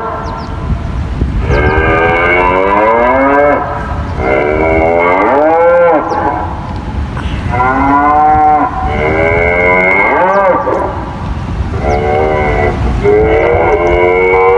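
Recorded cow mooing broadcast over a Whelen WPS-4000 tsunami warning siren's loudspeakers: about five long, loud moos in a row with a wavering pitch. The mooing cow is the signal that the warning system is only being tested.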